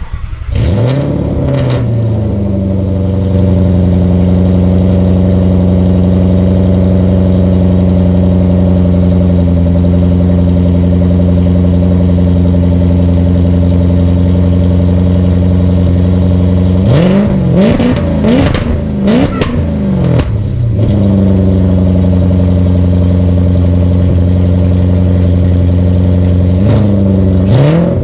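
Jaguar XF engine cold-starting through a straight-piped exhaust with MagnaFlow straight-through mufflers and no resonators. It catches right at the start with a rev flare and settles into a steady fast idle. It is blipped several times about seventeen seconds in, and again near the end.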